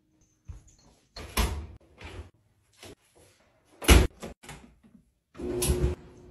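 A quick run of household knocks, bumps and thuds from things being handled, about a dozen in all; the loudest is a sharp knock about four seconds in.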